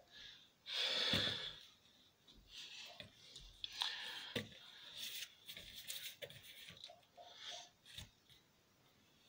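A man breathing hard: a long, heavy exhale about a second in, then a string of shorter huffs and puffs, with a short knock near the end.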